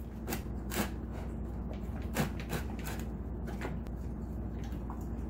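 Alaskan Malamute chewing raw bones from his bowl: a string of sharp cracks and crunches at uneven intervals, the loudest about two seconds in.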